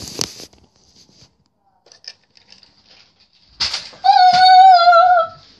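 A high-pitched, drawn-out cry, held for about a second and a half with a slight waver, starts about four seconds in and is the loudest sound here. Before it there is a brief rustle and knocking of handling in the first half-second.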